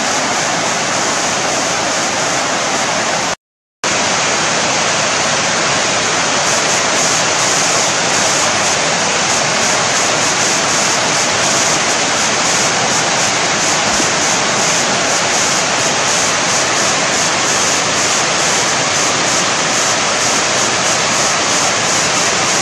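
Water rushing steadily over a concrete weir, a continuous loud hiss, broken once by a brief gap of silence about three and a half seconds in.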